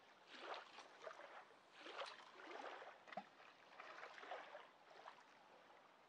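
Faint lapping of river water at the bank, coming in soft, irregular swells.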